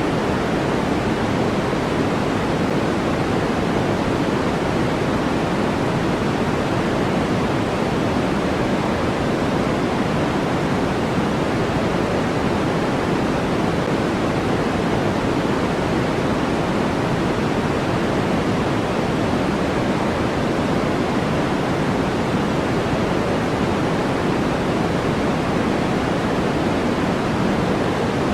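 Steady generated noise track, an unbroken even hiss that never changes, with more weight in the low-middle range than in the highs.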